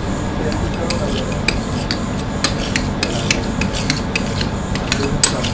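Metal spatulas scraping and tapping on the steel cold plate of a rolled-ice-cream machine as liquid cream base is spread and chopped. Many short, sharp metal-on-metal clicks come at an uneven pace over a steady low hum.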